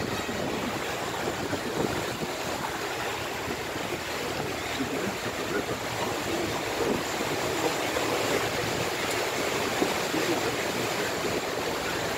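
Steady rush of water and motor noise of a river cruise boat under way, heard from aboard.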